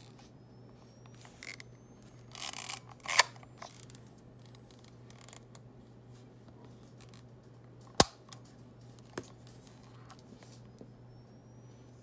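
A plastic Minolta Weathermatic A camera handled in the hands: a short rustle about two and a half seconds in, a sharp click just after, a louder sharp click about eight seconds in and a smaller one a second later, over a faint steady low hum.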